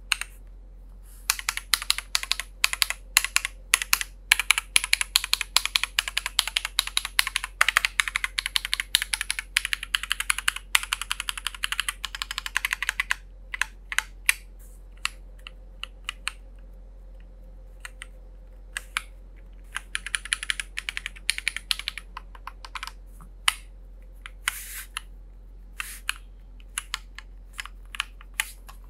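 Typing on a Keychron Q10 aluminium gasket-mount mechanical keyboard: a fast, dense run of keystrokes for about twelve seconds, then slower scattered key presses with a short quicker run about two-thirds of the way through.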